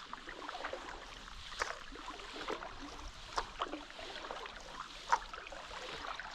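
Paddle strokes splashing in river water, a sharp splash about every second and a half to two seconds over a steady wash of moving water.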